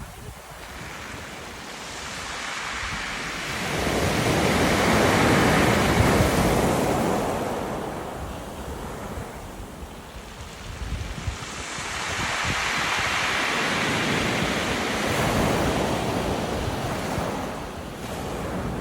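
Sea waves washing in and drawing back over a beach of round pebbles, the rush of water and stones swelling twice and easing off between. Wind buffets the microphone with a low rumble.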